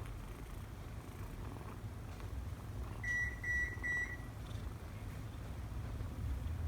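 Kitten purring as a steady low rumble, with four short electronic beeps about three seconds in.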